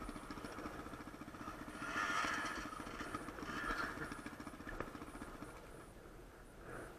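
Dirt bike engine idling with a fast, even putter that fades out about five seconds in, with two short louder rushes of noise over it.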